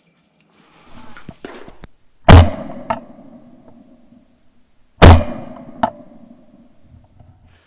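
Two shotgun shots about two and a half seconds apart, each loud and sharp with a short fading echo, and a smaller click soon after each. Rustling of brush comes before the first shot.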